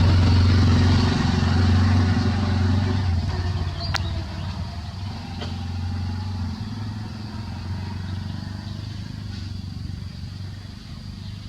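A motor vehicle's engine running with a steady low hum, loudest for the first three seconds and then fading away, with a single sharp click about four seconds in.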